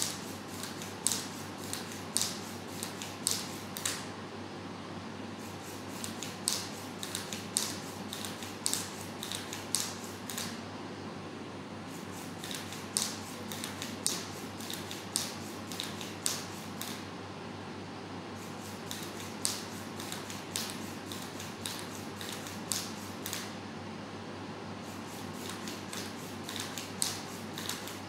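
Modular snake robot's servo joints clicking and creaking as it slithers, in runs of sharp clicks a few seconds long separated by short pauses, over a low steady hum.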